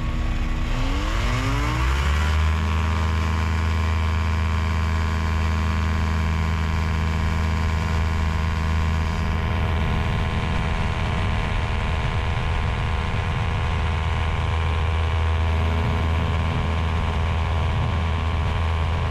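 Quad City Challenger II ultralight's engine and propeller throttling up to full power for the takeoff run: the pitch rises over the first two seconds, then the engine runs steady and loud at takeoff power.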